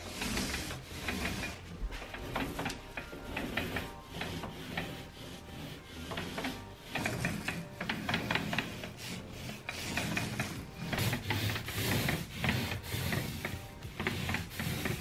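Paint roller rolling wet paint onto a wall in repeated up-and-down strokes, a rubbing, clicking sound that grows louder about halfway through.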